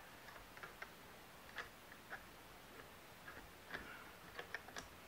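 Faint, irregular clicks and taps of the bolt and bolt carrier of a Blackheart B10B AKM rifle being worked back onto the receiver rails by gloved hands, about a dozen small knocks scattered unevenly.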